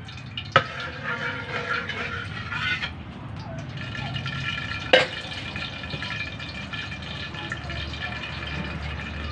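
Liquid being ladled from one wok and poured into another. The metal ladle clanks sharply against the pans twice, about half a second in and again about five seconds in.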